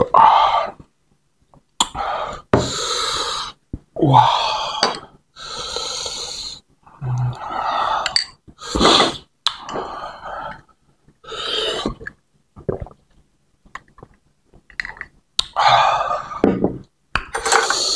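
Close-miked mouth sounds of a man eating bakso meatball soup: a run of noisy slurps and sharp breaths in, a few with a short hum, and small clicks of cutlery in between.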